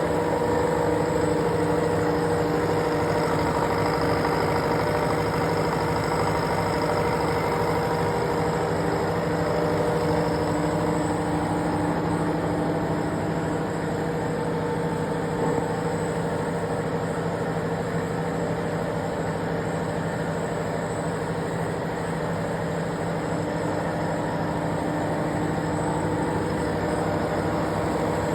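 Milling machine running steadily while milling an internal contour: a continuous mechanical hum with several steady whining tones, dipping slightly in level around the middle.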